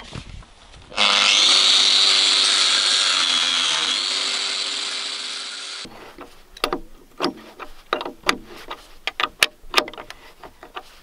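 A corded power tool runs under load for about five seconds, its motor tone sagging briefly about three seconds in. Then an open-end wrench clicks and scrapes on a cap nut and washer as it is turned down on a threaded rod through the timber frame.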